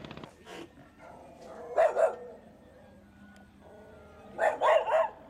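A dog barking: two barks about two seconds in, then a quicker run of three or four barks near the end. Just as it starts, a small boat motor's pulsing cuts out.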